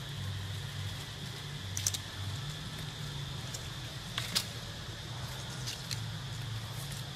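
Outdoor background of a steady low rumble and a steady high hiss. It is broken by a few brief crackles of dry leaves and twigs, about two seconds in and again just after four seconds, as long-tailed macaques scramble over the leaf litter and branches.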